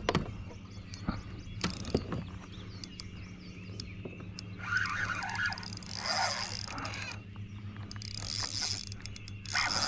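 A hooked largemouth bass splashing and thrashing at the water's surface as it is reeled in beside a kayak, in two splashy spells, about halfway through and near the end, with scattered light clicks from the rod and reel.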